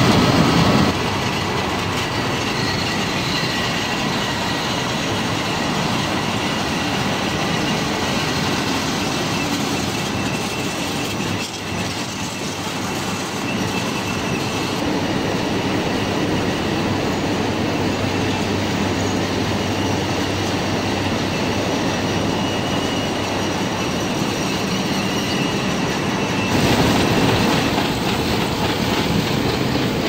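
Onion-handling conveyors running: a steady mechanical rattle of belts and rollers carrying onions, with the onions tumbling along.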